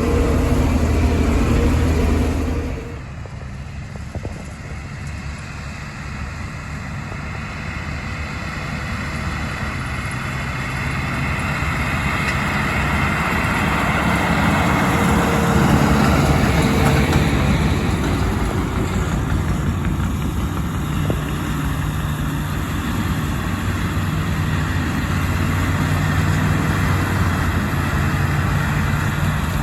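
Tractor engine running steadily under load while pulling a hay baler through the field. The sound drops suddenly about three seconds in, then gradually grows louder again.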